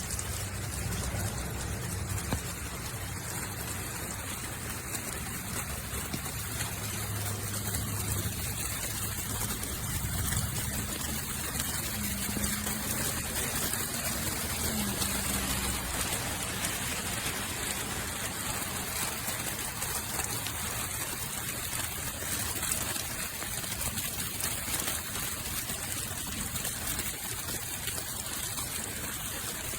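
Water running down a hand-hammered rain chain, a steady trickling and splashing that goes on unbroken.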